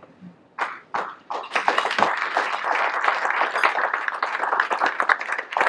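Audience applauding: a few scattered claps, then steady applause from about a second and a half in.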